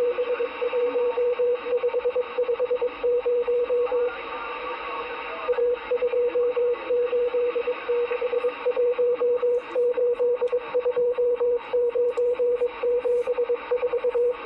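Morse code received over a CB radio: a single steady tone keyed rapidly on and off in dots and dashes over a bed of radio static. The tone breaks off for about a second and a half around four seconds in.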